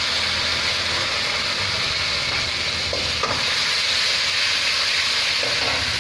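Chopped vegetables (capsicum, green chili, garlic and ginger) stir-fried in hot oil in a pan, making a steady sizzle.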